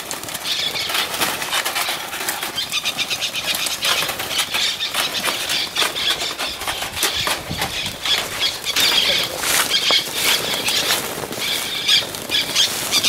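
Many parrots screeching and flapping their wings, a dense, continuous chatter of shrill calls and rapid wingbeats.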